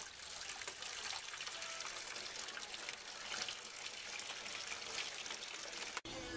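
Water running in a steady trickle, cutting off suddenly near the end.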